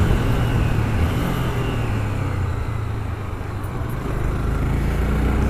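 Honda CB300R's single-cylinder engine running under way at cruising speed, with wind rushing past the microphone. The engine note eases off a little in the middle and picks up again toward the end.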